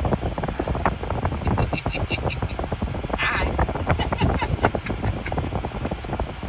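Wind buffeting the microphone, a rough, uneven rumble, with a quick run of faint high chirps about two seconds in.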